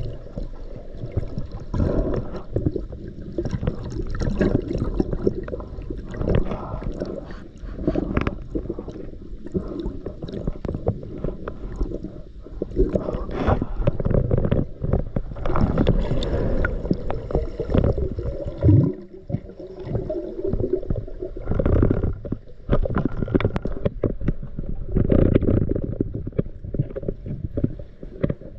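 Muffled water noise heard underwater: a gurgling rush with many scattered knocks and clicks.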